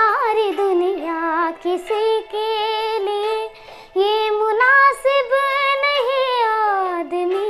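A young girl singing solo without accompaniment, holding long notes that slide up and down, with brief breaths between phrases.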